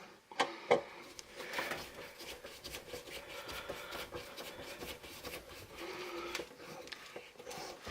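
Faint bench-work handling noises: two sharp clicks about half a second in, then light scraping and ticking of small hand work on the fitting, over a faint steady hum.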